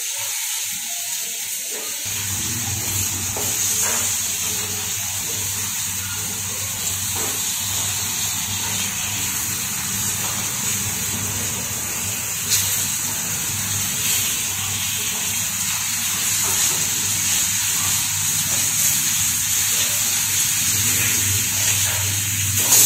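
Surmai (kingfish) slices shallow-frying in hot oil in a pan, a steady sizzle, with a few light clicks of the spatula against the pan as the pieces are turned. A low steady hum starts about two seconds in.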